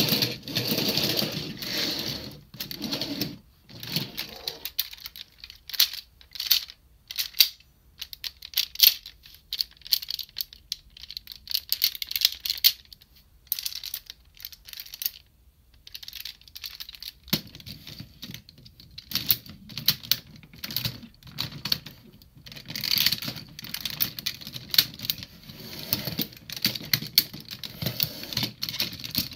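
Hard plastic train-car parts of a DX Super ToQ-Oh combining toy clicking and clacking as they are handled and snapped together by hand, in irregular runs of sharp clicks with a sparser stretch in the middle.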